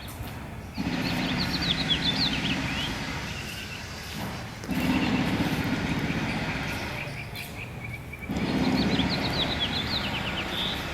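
A songbird singing the same quick chirping phrase twice, over a low hum that swells up three times.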